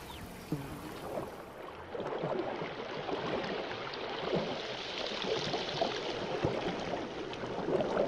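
Swamp water gurgling and splashing as an anaconda swims through it, with many small bubbling crackles; louder from about two seconds in.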